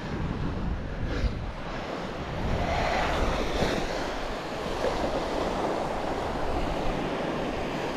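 Ocean surf washing onto the beach, swelling about three seconds in, with wind rumbling on the microphone.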